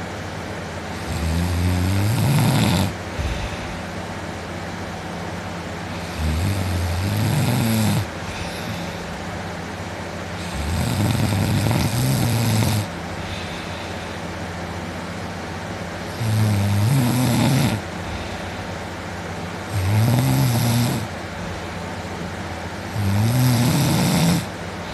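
A man asleep on his back snoring loudly: six long, low snores, one every four seconds or so, each lasting one to two seconds. A steady background hum runs between them.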